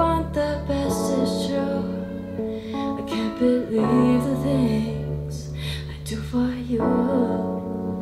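Music playing through a Bang & Olufsen Beoplay A9 Mk4 wireless speaker: a song with guitar over held bass notes that change every few seconds.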